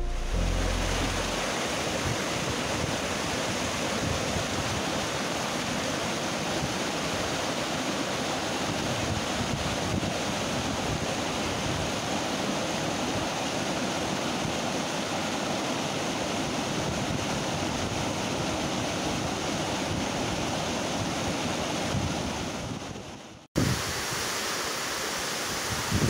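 Steady rush of a tall waterfall's water falling and splashing at the foot of a rock cliff. It fades away a little after 22 seconds in, breaks off, and comes back slightly louder near the end.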